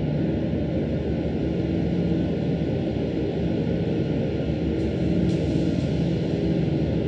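Dark ambient drone soundscape: a steady low rumbling drone with a few held low tones, and two faint hissing swells about five seconds in.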